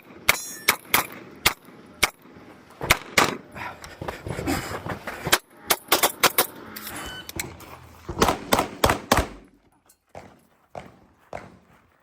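Kimber 2K11 pistol fired rapidly in quick pairs and short strings of shots, with short breaks between strings, as on a practical-shooting stage.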